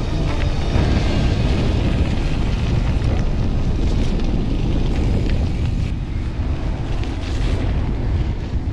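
Wind buffeting the microphone on a moving mountain bike, a steady low rumble, with music faintly underneath.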